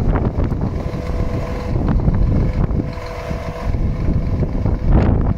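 Scania R490 truck running its truck-mounted loader crane: a steady hydraulic whine over the engine as the boom lifts, under heavy wind noise on the microphone.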